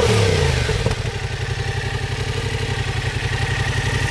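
Yamaha Tracer 700's two-cylinder parallel-twin engine through its stock Euro 4 exhaust, revs falling back in about the first second, then idling steadily with an even low pulse.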